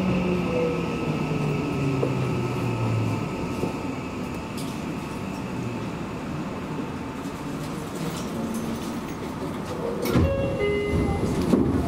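Electric commuter train braking to a stop at a station: the traction motors' whine falls in pitch over the first few seconds, then the train runs quietly at rest. About ten seconds in there is a sudden clatter with short high tones as the doors open.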